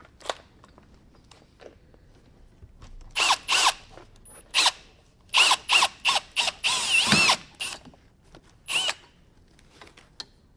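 Power drill running in a series of short bursts, its pitch rising and falling with the trigger, drilling out the rivets that hold the convertible top's tension cables. The longest and loudest run comes about seven seconds in.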